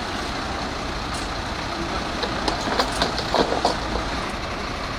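Steady low rumble of vehicle engines. A quick run of sharp metallic clinks and knocks comes from about two and a half to nearly four seconds in.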